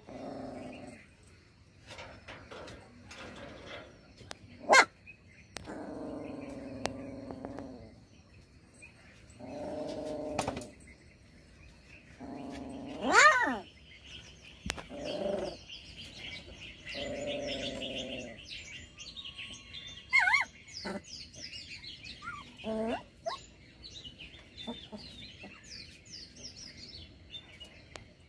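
Small birds chirping and twittering, most busily in the second half, over several drawn-out low animal calls a second or two long. One of the calls rises sharply in pitch. A few sharp clicks are mixed in.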